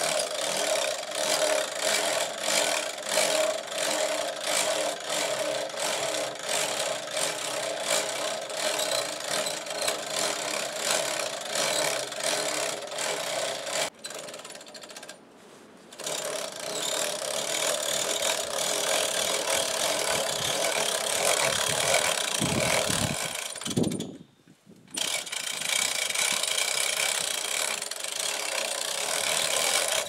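Hand winch being cranked, its ratchet pawl clicking in a rapid, even run as the winch line drags a log up steel ramps onto a portable bandsaw mill's bed. A steady mechanical hum runs underneath, and the sound breaks off briefly twice.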